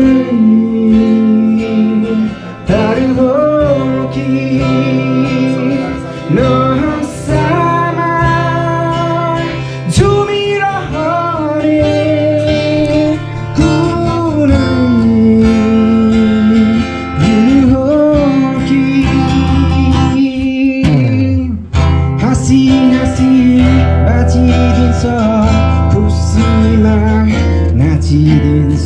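Acoustic guitar strummed as accompaniment to a singer performing a Nepali song, with steady chords under a wavering sung melody.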